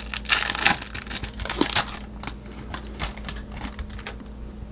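Foil wrapper of a trading-card pack crinkling as it is handled and torn open. The crackle is dense for about the first two seconds, then thins to scattered ticks.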